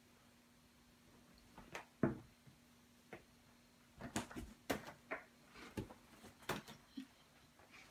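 Tonkinese queen and kitten scuffling and clambering on a fleece-covered bed: scattered soft knocks and scrabbling clicks, a couple about two seconds in, then a quick cluster from about four to seven seconds in.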